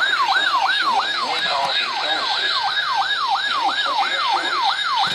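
NOAA Weather Radio WXL50 warning-alarm test signal: a siren-like tone wailing up and down about three times a second, steady and unbroken. Faint voices are heard underneath.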